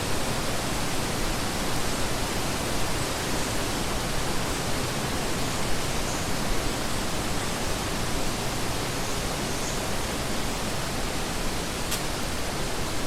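A steady, even rushing hiss spread across all pitches, unchanging throughout, with one faint click near the end.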